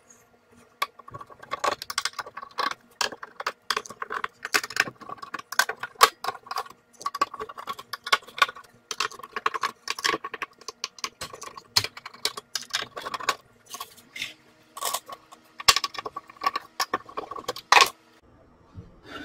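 Screws being worked out of the sheet-metal bottom cover of a Pioneer SX-3800 stereo receiver and set down on a wooden bench. It makes a long run of quick metallic clicks and clinks that stops a little before the end.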